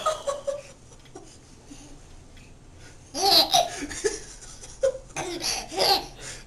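Baby laughing: a quieter first half, then bursts of high-pitched giggling about halfway through and again near the end.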